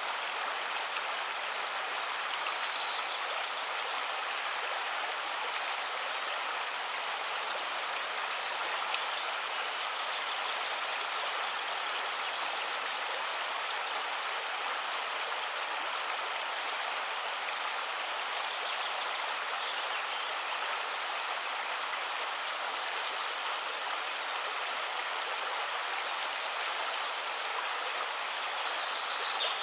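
River water running steadily, with birds calling over it: a loud run of rapid high trills in the first three seconds, then repeated high chirps on and off.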